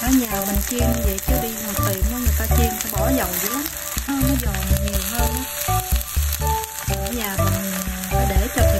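Bánh xèo crêpe sizzling steadily in hot oil in a nonstick frying pan, with background music playing over it.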